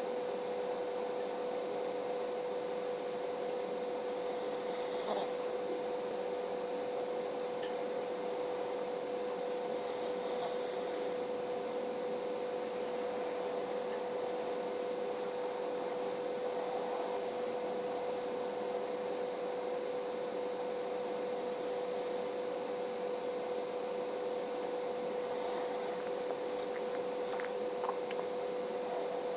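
A sleeping pet snoring softly, one hissy breath about every five to six seconds, over a steady electrical hum. A few sharp clicks come near the end.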